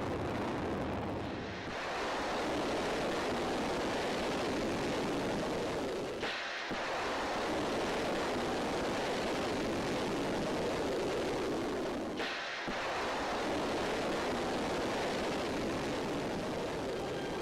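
Rocket exhaust of ballistic missiles lifting off: a loud, steady rushing rumble. It changes abruptly about 2, 6 and 12 seconds in, where one launch gives way to the next.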